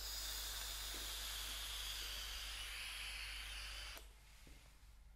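A long, steady exhale of vape vapour blown out through the lips, a breathy hiss lasting about four seconds that stops abruptly.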